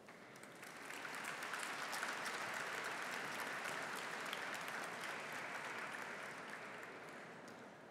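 Audience applauding, building up about a second in and fading away near the end.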